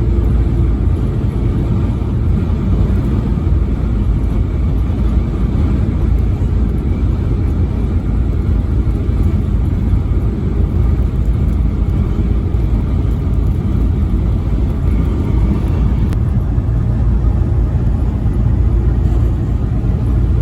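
Vehicle travelling at highway speed: steady low engine and road rumble that holds the same level throughout.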